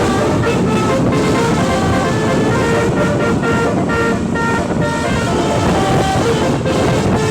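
Bus basuri (telolet) musical horn playing a quick tune of short notes stepping up and down in pitch, over loud road noise.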